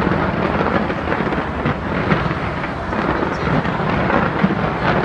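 Fireworks display in a dense, continuous barrage: many overlapping bangs and crackles with no gaps between them.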